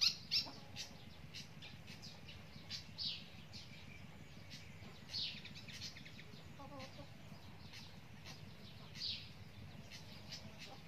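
Chickens: short, high, falling chirps repeat every second or so, loudest at the very start, and a hen clucks softly about seven seconds in.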